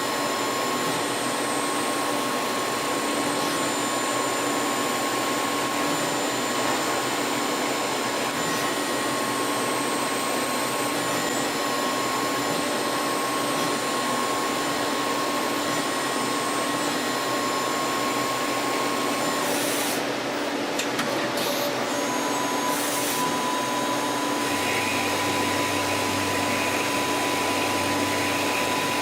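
CNC lathe running and machining metal: a steady hiss of machine noise with a steady whine over it. About twenty seconds in the sound briefly breaks and shifts, and a few seconds later a higher whine and a low hum join in.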